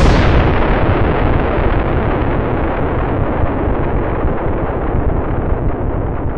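Explosion: the deep rumble of a large blast just after it goes off, dense and loud, fading slowly over several seconds as the high end dies away first.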